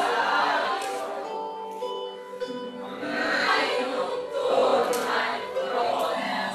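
Music with a choir singing over held instrumental notes.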